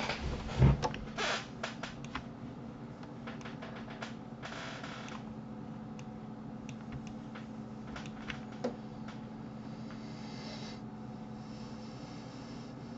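Computer mouse clicks and wheel scrolling while navigating a 3D viewport: a cluster of sharp clicks in the first two seconds and a few more later, with a loud thump about half a second in and a brief rustle a few seconds later, over a steady low electrical hum.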